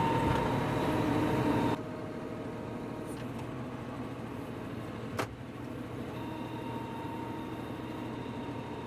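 John Deere 5075E tractor's diesel engine running steadily while it works its front loader in soil. The sound drops suddenly in loudness about two seconds in, and there is a single sharp knock about five seconds in.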